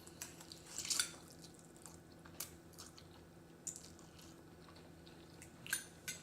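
People eating spicy instant noodles: scattered wet chewing and mouth noises, loudest about a second in and again near the end, over a low steady hum.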